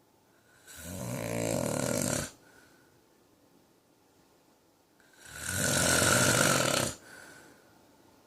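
A man snoring: two loud snores about four seconds apart, each lasting about a second and a half.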